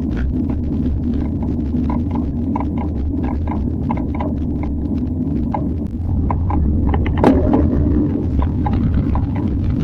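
Bicycle making an abnormal clicking noise while being pedalled: short ticks come a few times a second over a steady low rumble, with one louder click about seven seconds in.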